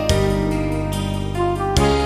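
Instrumental electronic keyboard music: sustained synthesizer chords over a steady bass, with a new chord struck near the end.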